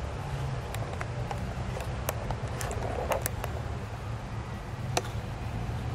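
Steady low background rumble with scattered light clicks and taps, a cluster of them about two to three seconds in and a sharper single click about five seconds in.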